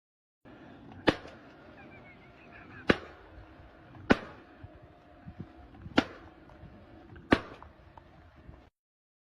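Five sharp strikes, one every one to two seconds, over a steady background noise.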